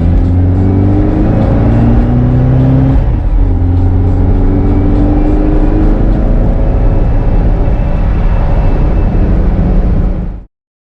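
1965 Volkswagen Beetle's 1776cc air-cooled flat-four, breathing through velocity stacks and an A1 exhaust, accelerating: the pitch climbs, drops at a gear change about three seconds in, climbs again, then holds fairly steady. The sound cuts off abruptly near the end.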